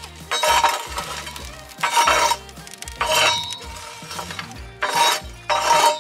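Metal peel scraping and pushing burning wood and embers across the floor of a wood-fired pizza oven, in about five short strokes with a metallic ring, over background music.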